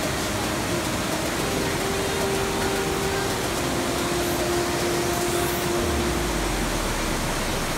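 Mountain stream waterfalls cascading over boulders: a steady, even rush of falling water.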